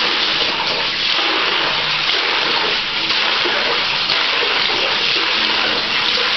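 Water running steadily from a tap into a plastic bucket, filling it.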